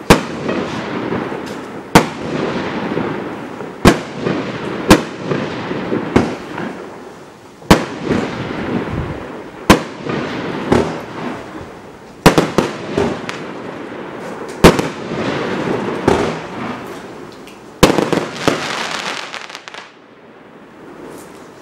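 Ardi Mad Fire Box 100-shot, 30 mm fireworks cake firing: about ten sharp bangs one to three seconds apart, each followed by a crackling hiss of the bursting stars. The shots stop a couple of seconds before the end, leaving a fading crackle.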